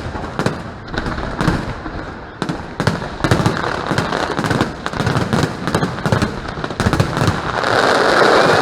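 Aerial fireworks going off: many sharp bangs in quick, irregular succession, which run together into a dense, continuous din near the end.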